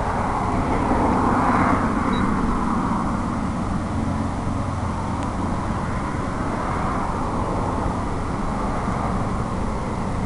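Steady outdoor background rumble, with a brief swell about a second or two in.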